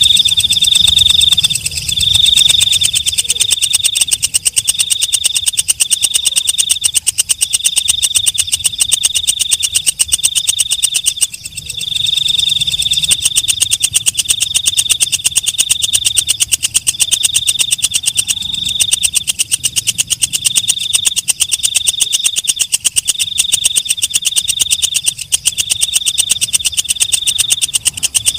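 Katydid (walang kecek) singing: a high, rapid ticking buzz in short trains, repeating steadily about once a second.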